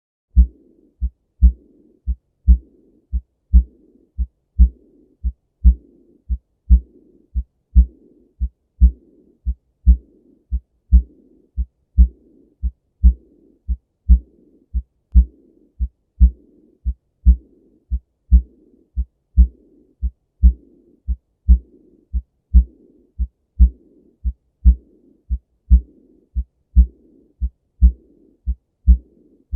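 Heart sounds in a steady lub-dub rhythm of just under one beat a second, with a soft blowing murmur between the beats: the murmur of aortic regurgitation, a leaking aortic valve.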